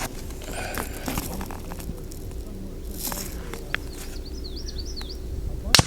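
A single fullbore target rifle shot near the end: a sharp crack with a long echo dying away across the range.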